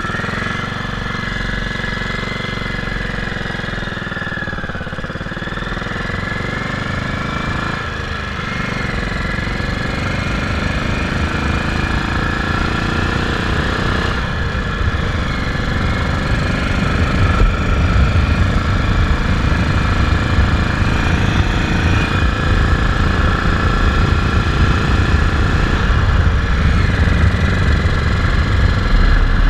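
Moto Guzzi Falcone's single-cylinder engine pulling away and accelerating, its note rising and falling with a few brief breaks as it changes up. Wind buffeting on the microphone grows louder as speed builds.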